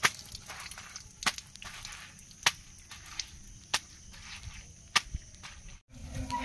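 Metal tube-well hand pump clanking with each stroke of its handle: five sharp knocks about a second and a quarter apart, over a faint hiss of water running from the spout.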